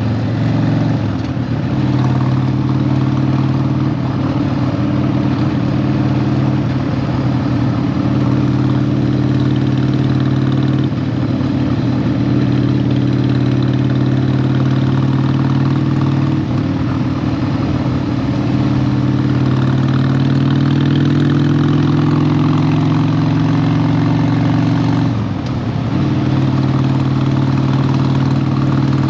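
Harley-Davidson 1200's V-twin engine running as the motorcycle rides along, the engine note shifting slightly in pitch with throttle. It eases off briefly once, about 25 seconds in, then picks up again.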